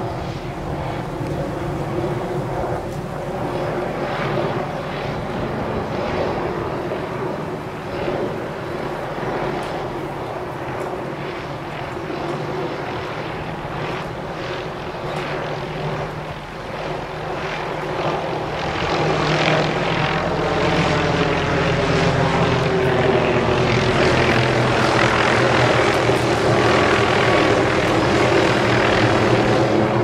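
Small helicopter flying low overhead: the rotor chop and engine run as one steady drone. It gets louder about two-thirds of the way through as it comes closer, and its pitch slowly bends.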